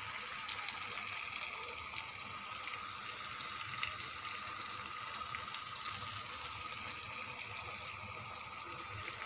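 Spiced masala paste sizzling gently in oil in a pan: a steady soft hiss with scattered small crackles.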